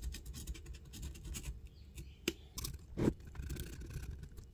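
Stanley knife blade slicing through thin wood veneer: a run of small scratchy ticks and crackles, with a couple of louder clicks about two and three seconds in.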